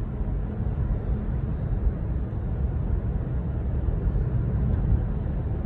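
A car driving, with a steady low rumble of road and engine noise and no horn sounding.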